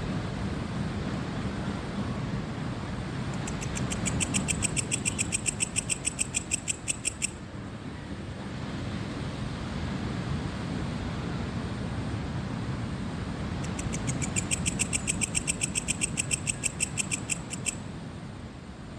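A cricket chirping in two rapid, evenly pulsed trills of about four seconds each, one a few seconds in and one near the end, over a steady low rush of ocean surf.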